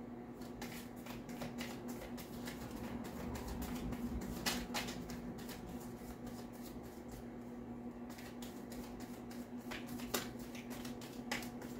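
A deck of tarot cards shuffled by hand, overhand: irregular soft flicks and slaps of card edges, with louder slaps about four and a half seconds in and again near ten seconds.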